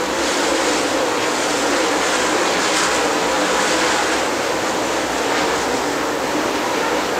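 Dirt late model race cars' V8 engines running hard in a pack at racing speed: a steady, dense engine noise with a faint droning pitch underneath.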